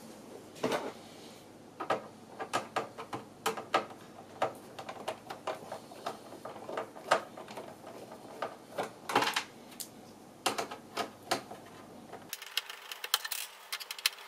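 Irregular clicks and clatter of plastic monitor casing parts and hand tools being handled while an LCD monitor is taken apart.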